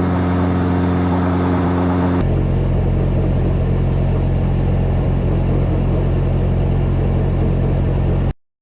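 Helicopter rotor and engine running steadily in flight, heard from inside the aircraft as a loud, even hum. About two seconds in the pitch of the hum shifts, and near the end it cuts off abruptly.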